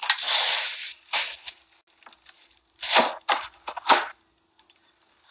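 Plastic bags and cigarillo wrappers crinkling and rustling as they are handled, in several short, irregular bursts.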